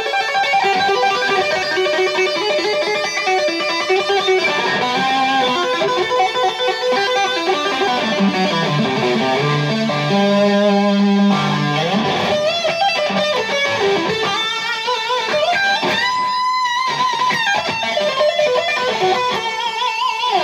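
Electric guitar, a Stratocaster-style solid-body, played as a lead line with two-handed tapping on the fretboard. Sustained notes wobble with vibrato and bend in pitch. About eight seconds in the line runs down into lower notes held for a few seconds, then climbs back up into bent high notes.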